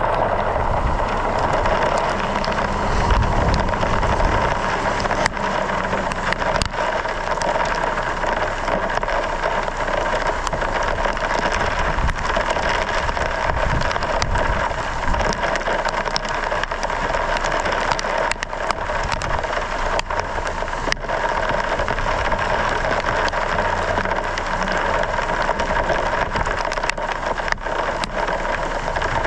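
Rain and hail striking a vehicle as a steady wash with many scattered sharp ticks, over a low engine and road rumble.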